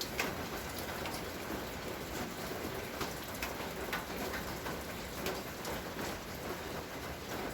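Steady rain falling, with many separate drops ticking sharply.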